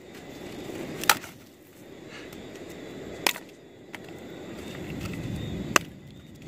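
Machete chopping a dry stick into firewood: three sharp chops about two seconds apart, with a steady low rushing noise between them.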